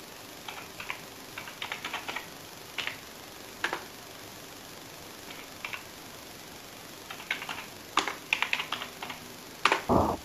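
Computer keyboard keys being typed in short runs of clicks with brief pauses, as lines of a short program and a command are entered. A louder low thump comes near the end.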